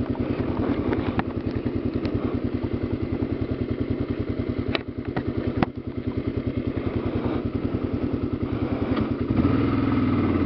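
Kawasaki KLR650 single-cylinder engine running at low speed on a gravel trail, with an even pulse of firing strokes. A couple of sharp knocks sound about five seconds in, typical of stones striking the aluminium skid plate underneath. Near the end the engine gets louder as the throttle is opened.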